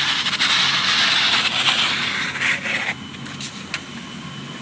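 Sheet of anti-rust paper crinkling and rustling as it is sliced with a very sharp knife: a dense papery rustle that stops abruptly about three seconds in.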